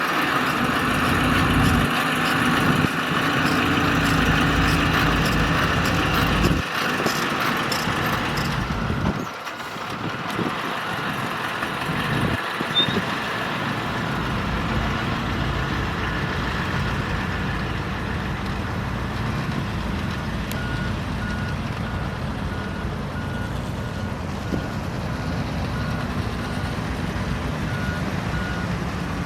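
Bulldozer's diesel engine running hard under load, easing somewhat after about nine seconds. In the second half a reversing alarm beeps steadily.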